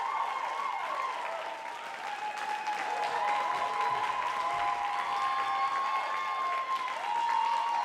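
Theatre audience applauding, with cheering voices rising and falling over the clapping.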